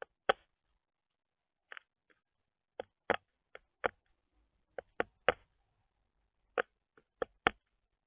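Northern flicker pecking seed from a plastic feeder tray: about fifteen sharp taps of its bill, irregularly spaced, some in quick pairs.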